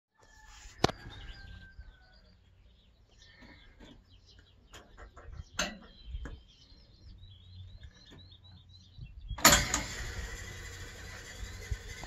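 Program dial of a 1960 Constructa K5 washing machine turned by hand, clicking as it is set, with birds chirping faintly. About nine seconds in, the machine switches on with a sudden, steady rushing sound.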